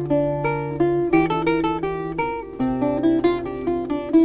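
Background music on acoustic guitar: a run of plucked notes, each starting sharply and fading, picking out a melody over lower bass notes.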